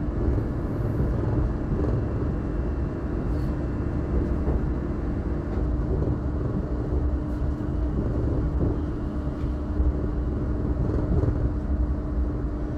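Electric passenger train running along the line, heard from inside the carriage: a steady rumble of wheels on rail with a constant low hum.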